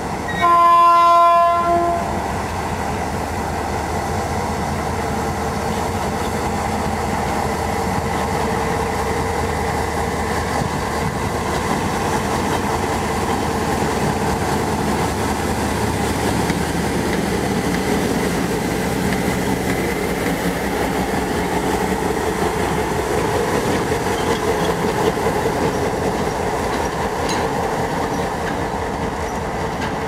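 GM G22 diesel-electric locomotive sounding one horn blast of about a second and a half. After the blast, its diesel engine runs steadily as it moves slowly along the track while shunting.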